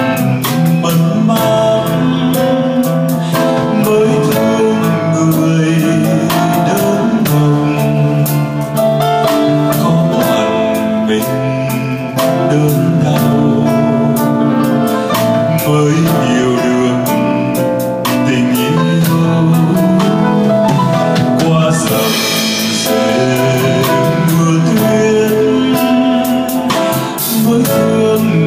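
A live band plays a slow ballad on guitar and drum kit, with a male singer. The drums include cymbal crashes, the strongest about two-thirds of the way through and again near the end.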